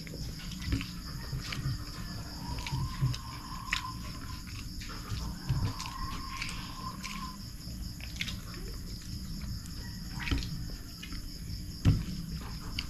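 Crickets chirring steadily in the night air, with scattered soft clicks and taps of fingers eating rice from a plate; one sharper tap stands out about twelve seconds in.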